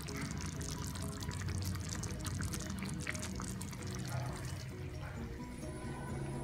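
Soft background music with held notes over a faint, grainy liquid bubbling from turkey kefta meatballs simmering in tomato sauce in a clay dish on the stove.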